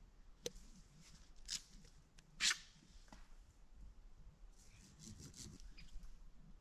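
Faint scattered rustles and clicks of handling noise, with a sharper snap about two and a half seconds in and a smaller one about a second earlier.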